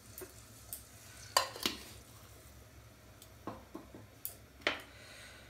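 About half a dozen light clicks and knocks of kitchen utensils being handled beside the stove, over a faint steady background.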